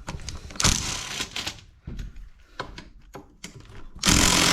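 Small clicks and knocks of tools and parts being handled. About four seconds in, a cordless impact driver starts hammering loudly on a tight hex screw in the nail gun's cover.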